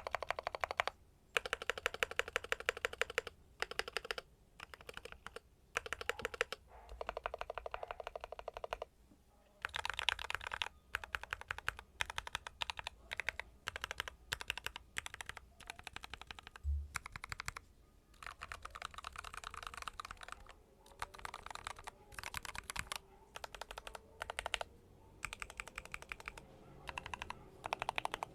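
Fast typing on a mechanical keyboard with Gateron North Pole switches and Akko ASA low-profile keycaps. Rapid keystrokes come in runs of a second or more, with short pauses between them.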